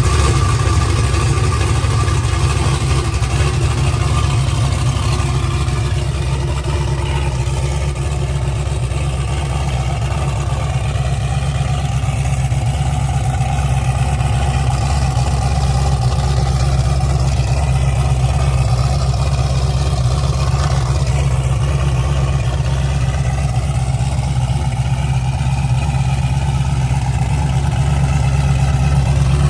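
Methanol-fuelled turbocharged Nova's engine idling loud with a rapid, lumpy low beat, warming up after a cold start.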